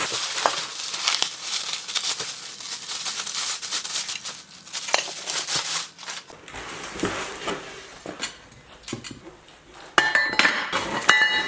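Packaging rustling and crinkling as a heavy metal tool is unpacked, with scattered knocks and clinks of metal parts and a short metallic ring near the end.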